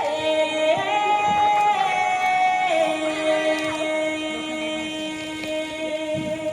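Show music: a singing voice holding long notes, stepping up in pitch about a second in and back down near three seconds, then holding one note.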